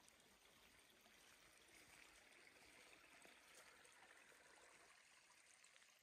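Very faint, steady trickle of a small shallow woodland stream, a little fuller in the middle.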